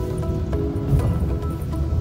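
Background music with soft sustained chords.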